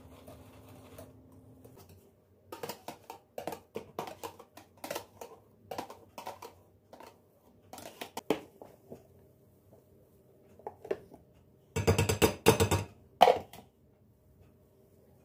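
Dishes and kitchen utensils being handled: a run of light clinks and knocks, then a louder burst of clattering near the end.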